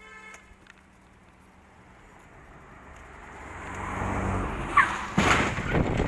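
A car passes close by, its noise rising and then falling away. About five seconds in comes a sudden loud bang with a brief squeal just before it, then a burst of knocking and rattling: the sound of the car collision at the intersection ahead.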